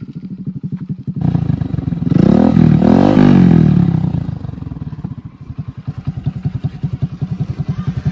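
Hero Splendor's single-cylinder four-stroke engine running through an aftermarket exhaust, idling with a rapid, even popping beat. About two seconds in it is revved once, the pitch rising and falling back over about two seconds, then it settles to idle again.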